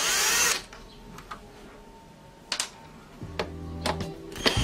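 Cordless drill unscrewing the back-panel screws of a small powered speaker. A short loud spin of the drill at the start, then a few sharp clicks and taps, a brief slower run of the motor a little past three seconds, and the drill spinning up again at the very end.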